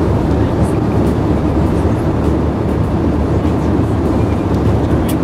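Airbus A320 cabin noise: the steady low roar of the jet engines and airflow, even in level throughout.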